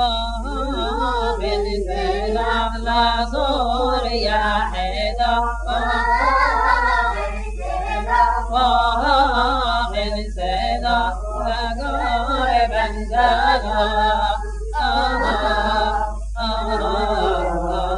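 Unaccompanied male singing in the Yemenite Jewish shira tradition, Sana'a style: a chant-like melody sung in long, ornamented phrases. A steady low hum sits under the voice.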